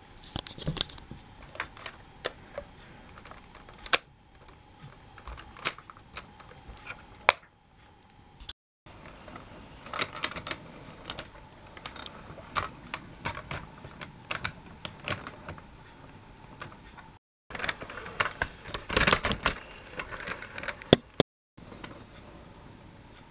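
Irregular small plastic clicks and rattles, as of toy trams and Lego train pieces being handled on plastic track, thickest near the middle and again near the end; the sound breaks off abruptly a few times.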